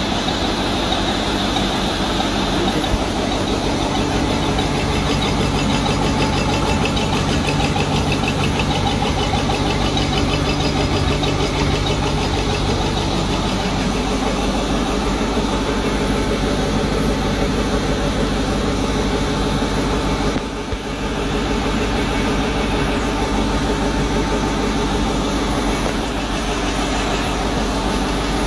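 A 15 kW biogas-fuelled generator engine and the twin-cylinder compressor that pressurises its gas, both running steadily with a continuous mechanical hum. The sound dips briefly about twenty seconds in.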